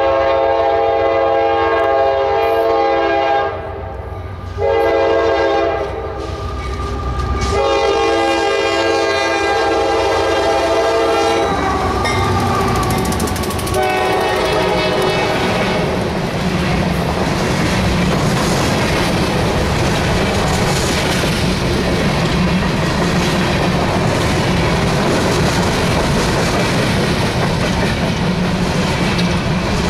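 CSX freight locomotive's horn blowing several blasts for the grade crossing, the last one long. About twelve seconds in, the locomotive passes and a string of empty hopper cars rolls by, its wheels clattering steadily on the rails.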